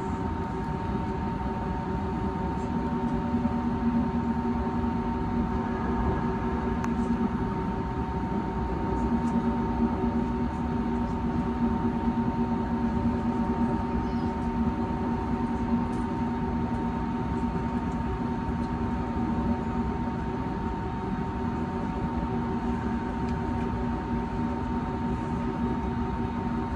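Steady cabin drone of an Airbus A320neo standing on the ground with its engines idling: an even rush of noise with a constant high whine and a low hum.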